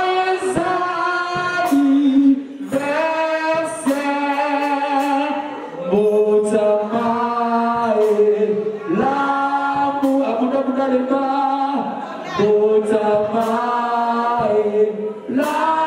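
Several voices singing together a cappella, holding notes in harmony in phrases of a second or two with short breaks between them.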